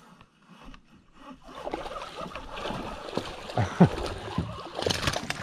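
Water splashing and sloshing at the surface as a hooked largemouth bass thrashes on the line. It builds about a second in, with sharper irregular splashes through the middle and again near the end.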